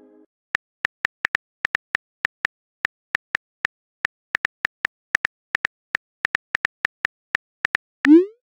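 Phone keyboard key clicks, short and irregular at about three or four a second, as a text message is typed out. Near the end comes a short rising swoosh as the message is sent.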